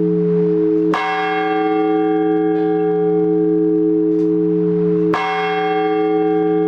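A large Orthodox church bell struck twice in measured blagovest strokes, about four seconds apart, its deep hum ringing on between strikes.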